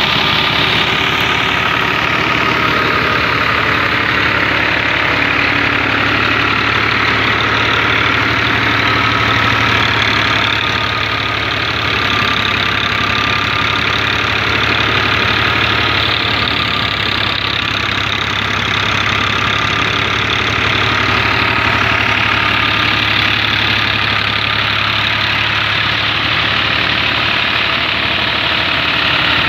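New Holland 480 tractor's diesel engine running steadily under load, driving a wheat thresher through its PTO shaft. The thresher's continuous rushing noise runs over the engine's low, even beat.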